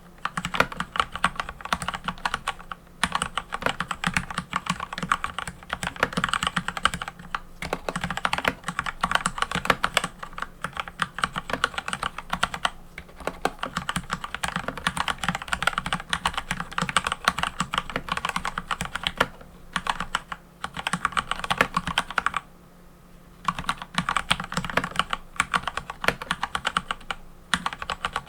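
Mechanical keyboard being typed on quickly and steadily, a dense run of key clicks and clacks with a few brief pauses and one longer pause of about a second near the end.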